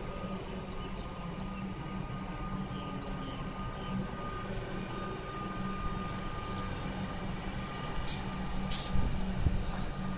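Comeng electric suburban train rolling slowly into the platform and coming to a stop, with a steady low hum and a steady high whine. Two short hisses sound about a second apart near the end.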